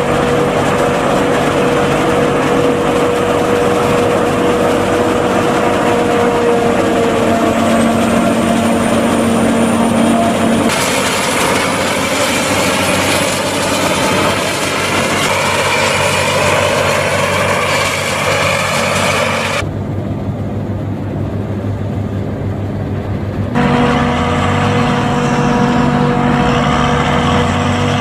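New Holland FX450 forage harvester chopping corn: engine and cutterhead running steadily under load, with tractor engines alongside. The sound changes abruptly several times, turning duller for a few seconds about two-thirds of the way in.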